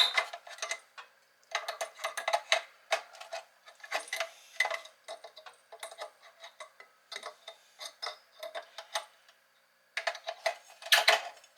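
Irregular light clicks and plastic-and-glass knocks of a 15-watt T8 fluorescent tube being worked in its lamp holders, with a short lull and a louder clatter near the end.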